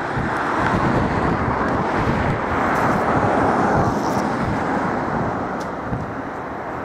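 Freightliner Class 66 diesel locomotive's two-stroke EMD V12 engine working under power as it approaches with a freight train, a steady drone that swells to its loudest about halfway through and then eases a little.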